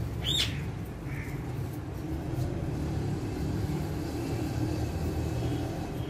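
A parakeet gives one short squawk about half a second in and a faint chirp soon after, over a steady low hum.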